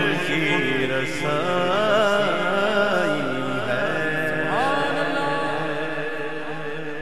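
Male voice singing a naat in long, drawn-out melodic lines into a microphone, gradually growing quieter through the second half.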